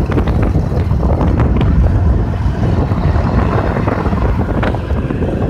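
Homemade karakat's Lifan 24 hp petrol engine running as the buggy drives over a rutted dirt track, mixed with heavy wind noise on the microphone and a few short knocks.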